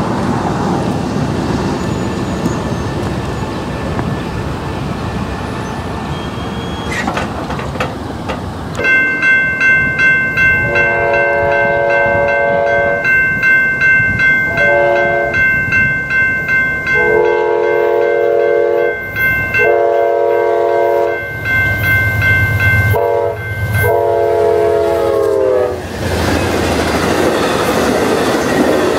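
Amtrak passenger train sounding its horn in several long and short blasts for the grade crossing, the last blast dropping in pitch as the locomotive goes by, while the crossing-signal bell rings rapidly. Near the end comes the loud rumble and wheel clatter of bilevel passenger cars passing over the crossing.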